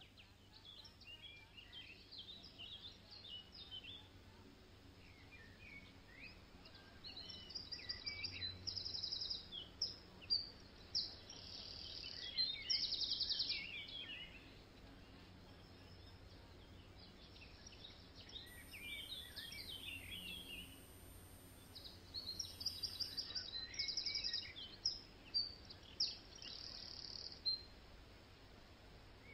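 Small birds chirping and trilling in bouts, short calls and rapid trills, busiest about a third of the way in and again near the end, over faint steady outdoor background noise.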